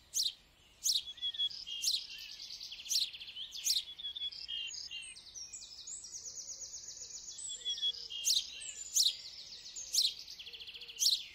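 Small birds chirping: sharp, high chirps about once a second, mixed with fast, high trills.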